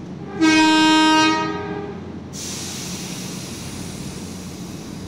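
Horn of an Ueda Electric Railway 7200 series electric train, sounded once for about a second and dying away in the station. About two seconds in, a steady hiss starts suddenly and continues.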